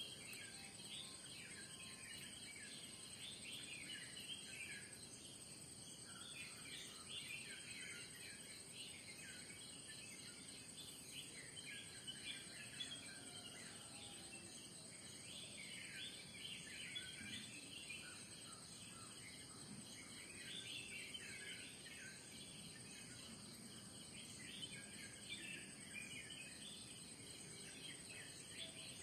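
Faint morning birdsong: many small birds chirping and calling throughout, over a steady high-pitched insect drone.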